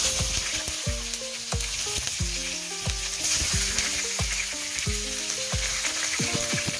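Garlic and red onion sizzling in hot oil in a non-stick wok: a steady frying hiss. Background music with a steady beat plays underneath.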